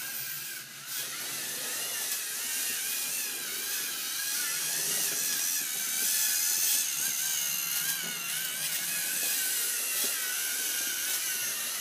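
LEGO Mindstorms robot's electric motors whining as it drives and flips the Rubik's Cube. The whine wavers in pitch and runs steadily, a little louder around the middle.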